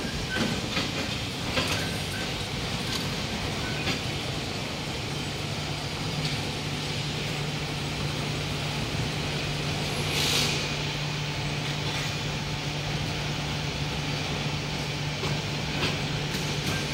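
Steady factory-hall machinery noise, with a few light clicks early on and a low steady hum that sets in about five seconds in. A brief hiss sounds at about ten seconds.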